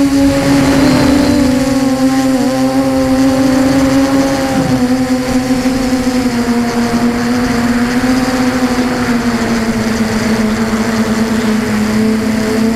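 Electric motors and propellers of an HK Scarab 360 FPV model heard from its onboard camera: a steady buzzing whine that sags slightly in pitch through the middle and climbs again near the end as the throttle comes up, over the rush of air on the microphone.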